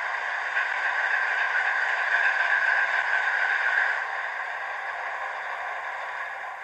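Recorded Class 60 diesel engine sound from a DCC sound decoder in a 4mm-scale model locomotive, played through the model's small speaker with almost no bass; a steady engine drone that is loudest for the first few seconds, then fades away over the rest.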